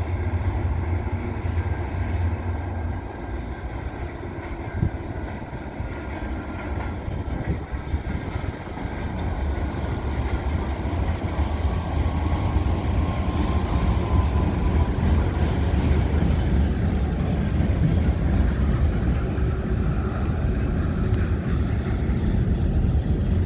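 Canadian National freight train rumbling past, a steady low rumble that grows louder about ten seconds in.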